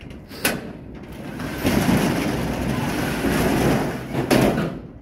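Corrugated steel roll-up storage unit door being pushed open: a sharp knock as it is released about half a second in, then a loud rattling rumble as it rolls up, ending in a bang near the end as it reaches the top.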